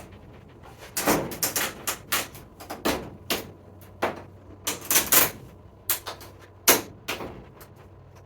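An irregular series of sharp clicks and knocks, about a dozen over several seconds with the loudest near the end, from greenhouse-kit parts being handled and fitted together.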